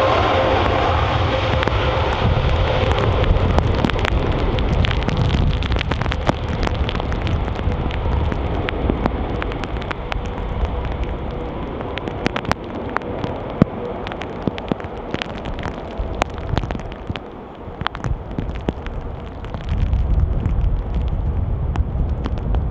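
Boeing 787 Dreamliner's Rolls-Royce Trent 1000 engines at take-off thrust as the jet rolls and lifts off: a loud jet roar with a high whine that slowly falls in pitch over the first few seconds. Scattered sharp ticks run through it, and the sound dips briefly before a low rumble swells back near the end.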